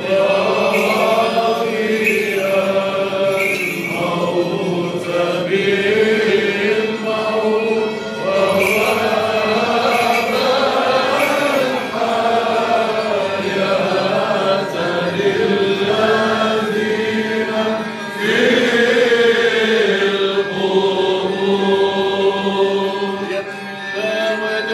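Male voices singing Byzantine chant, a gliding melody over a steady held low drone.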